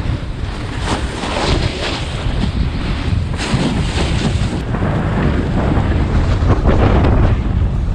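Wind buffeting the built-in microphone of a GoPro Hero 7 Black at snowboarding speed: a loud, heavy low rumble with gusty surges. The microphone has no foam wind cover, so the wind noise swamps the audio.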